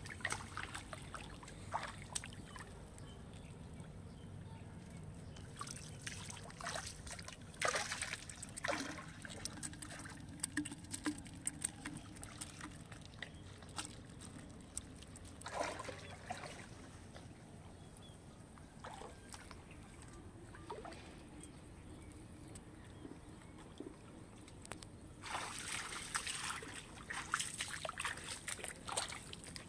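Water trickling and sloshing with scattered splashes as a hand fishing net is worked in the water, with a busier run of splashing a few seconds before the end.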